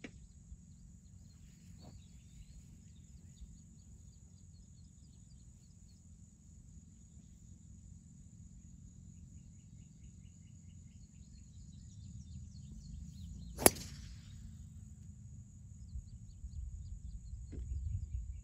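A single sharp crack of a driver striking a teed golf ball, a little over two-thirds of the way in. Under it, a steady low wind rumble on the microphone and a thin, steady high insect buzz.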